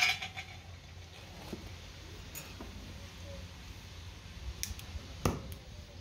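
Scattered clicks and knocks as a cut sheet-metal patch and hand tools are handled and set down on a steel block, the loudest a single sharp knock about five seconds in, over a low steady hum.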